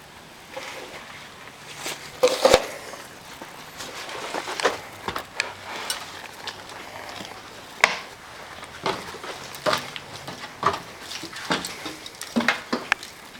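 Footsteps crunching and knocking over debris and a littered floor: an irregular run of sharp clicks, crunches and knocks, loudest about two and a half seconds in and again near eight seconds.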